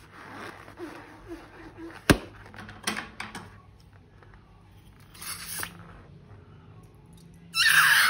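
Scissors snipping a slime-filled balloon: sharp clicks and snips with a short squishy hiss of slime. Near the end a loud, high, wavering squeal starts suddenly.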